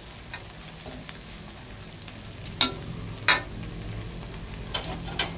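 Garlic-chive omelette frying in oil in an aluminium wok, a steady sizzle, with a few sharp clicks of the metal spatula against the wok in the second half.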